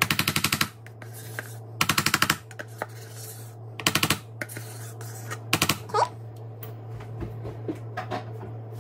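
Seasoning shaker being shaken over sour cream in four short bursts, each a fast rattle of clicks, about two seconds apart. A steady low hum runs underneath.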